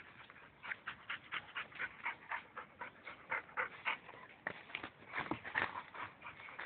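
White boxer dog panting quickly, about four breaths a second.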